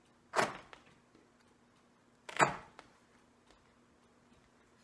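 Utility knife slicing relief cuts into taut pool-table cloth at a corner pocket: two short, sudden cutting sounds about two seconds apart, with a third starting at the very end.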